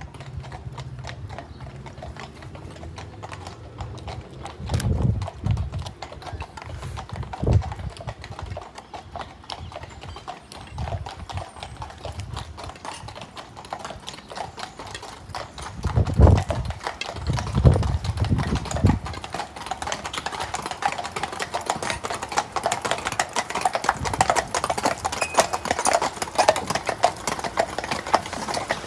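Horses' hooves clip-clopping at a walk on a tarmac road as a team pulls a horse-drawn hearse, the steady clatter growing louder as the horses come near. A few dull low thumps stand out, the loudest in the middle.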